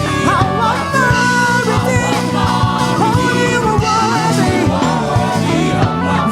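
Live gospel praise-and-worship music: a singer holding wavering notes over the band's sustained instruments and a steady drum beat.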